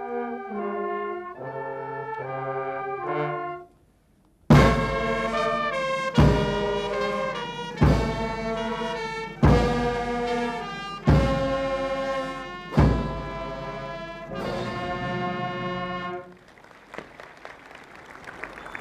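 Brass band music: held brass chords, a short break, then seven loud held chords about a second and a half apart, each opening with a drum hit. The music ends a couple of seconds before the end and faint noise remains.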